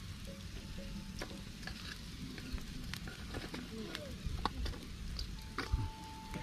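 Open wood fire crackling under goat meat roasting on a wire grill: a steady sizzling hiss dotted with scattered sharp pops and clicks.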